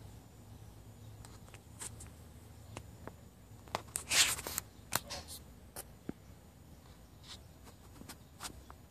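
Soft rustling and scattered small clicks close to the microphone over a faint low hum, with one louder rustle about four seconds in.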